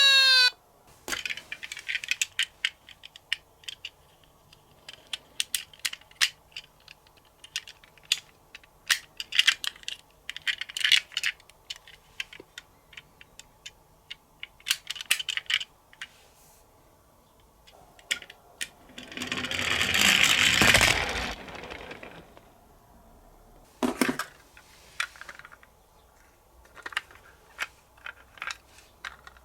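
A toy siren stops just after the start. Then comes a run of light, sharp clicks and clatters of small hard toy cars being handled and knocked together, with a rushing scrape of about two seconds roughly two-thirds of the way through.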